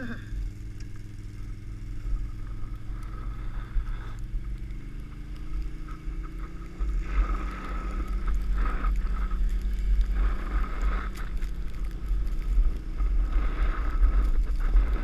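A Can-Am XMR ATV's engine runs steadily ahead while it tows a plastic trash can lid over snow, with the lid hissing and scraping across the snow and wind rumbling on the microphone. The scraping and rumble get louder about halfway through.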